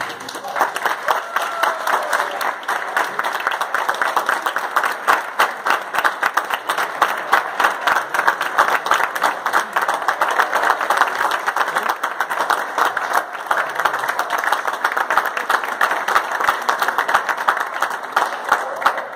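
Audience applauding, the dense clapping of many hands, greeting the conductor as he walks out before the orchestra plays.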